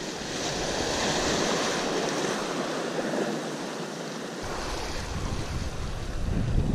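Sea waves surging in and washing over a seaweed-covered rock shelf, a swelling rush of water. Wind rumbles on the microphone over the last couple of seconds.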